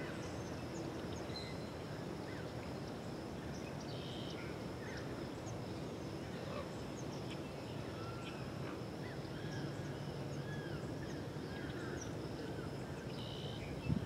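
Outdoor ambience: a steady low rumble with many short, faint chirps and arched whistles from small birds scattered throughout, over a thin steady high tone.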